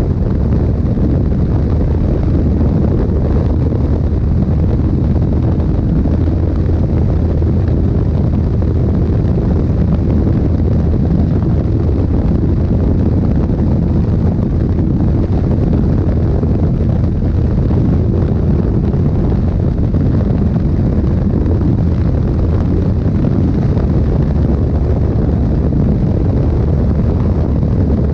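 Steady wind rush buffeting the action camera's microphone at highway speed, about 110 to 130 km/h, over the low, even drone of a KTM 390 Duke's single-cylinder engine cruising.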